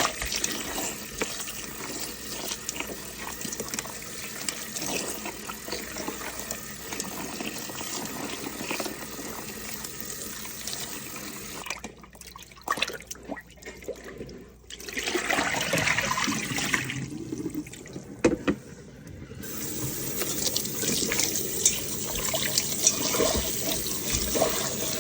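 Water running from a tap into a sink as a stuffed llama is rinsed by hand, with two short drops in the sound about halfway through.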